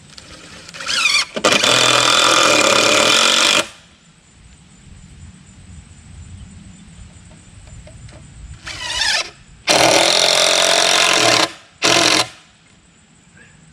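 A power driver running screws into a wooden post. Twice it gives a short rising whine, then runs hard for about two seconds. A short final burst follows the second run.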